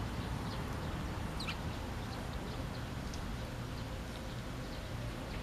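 Eurasian tree sparrows giving faint, scattered short chirps, with one clearer call about a second and a half in, over a steady low background rumble.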